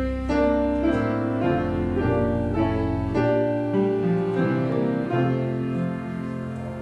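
Piano music playing slow, held chords, fading out near the end.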